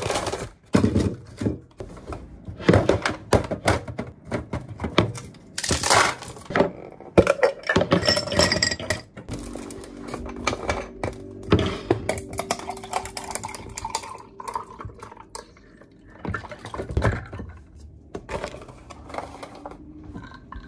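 Table-top handling of a takeaway meal: repeated knocks, clatters and rustles of paper bags, food boxes and a plastic tumbler, with iced tea being poured from a plastic bottle over ice. A steady low hum runs for a few seconds in the middle.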